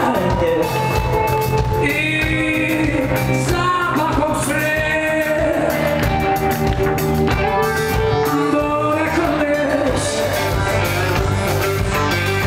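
Live rock band performing: a male lead singer sings long, gliding sung lines into a microphone over electric guitar, bass, keyboard and drums, heard from the audience.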